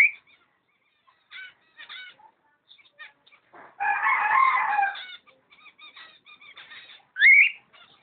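A pair of cockatiels calling: a loud rising whistled call at the start and another near the end, with short chirps between. About four seconds in comes a longer, harsher call lasting a little over a second.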